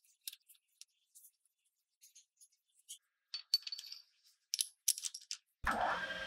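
Small sharp metallic clicks and clinks of steel parts being handled, louder in a cluster as a steel rod is set and clamped in a metal lathe's chuck. Near the end the lathe motor starts up suddenly and runs steadily.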